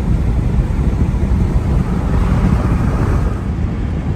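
A vehicle driving: a steady, loud low rumble of engine and road noise, with some wind on the microphone.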